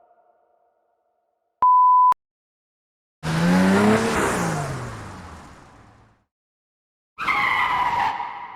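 A short, steady beep like a censor bleep, then two separate car sound effects: a burst of engine noise falling in pitch that fades out, and a tyre screech starting near the end.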